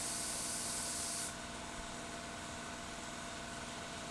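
Compressed-air paint spray gun hissing as primer is sprayed, the trigger released about a second in, leaving a quieter steady hiss and hum.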